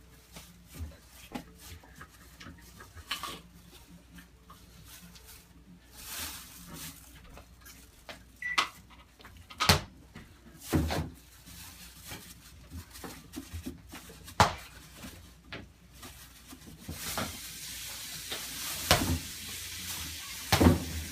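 Scattered knocks, clinks and rustles of things inside a refrigerator being handled and moved as someone rummages through it. A steady hiss comes in for the last few seconds.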